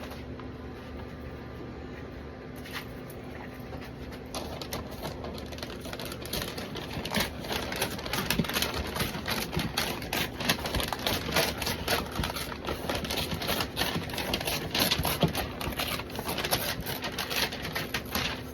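Wrapping material crinkling and rustling as a smoked brisket is rolled up tightly in it: a dense run of small crackles that gets busier after the first few seconds.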